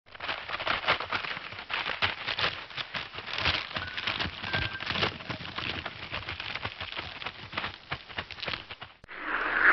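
Cartoon crunching and cracking sound effect: a dense, irregular run of crackles and snaps, like something being crushed or crumpled, lasting about nine seconds. Near the end it stops and a smoother, hissing sound begins.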